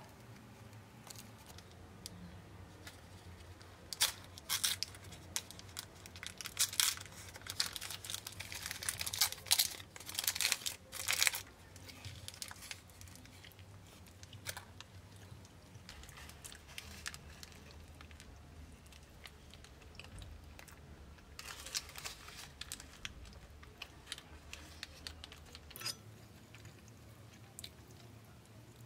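Paper sandwich wrapper crinkling and rustling as it is handled, in irregular bursts during the first half and again later on.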